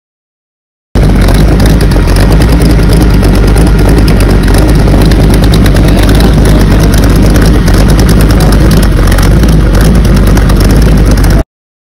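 Built 400-cubic-inch small-block Chevy V8 on a custom trike, running loud and steady through open headers. It cuts in about a second in and stops abruptly near the end.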